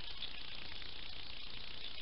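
Steady hiss from a trail camera's microphone, with a few faint scattered clicks.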